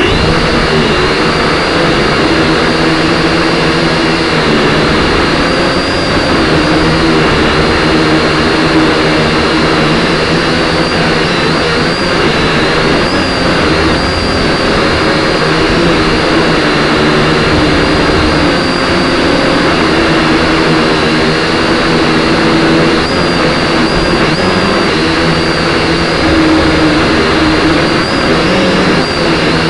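A small engine or motor running steadily and loudly close to the microphone, its pitch wavering slightly.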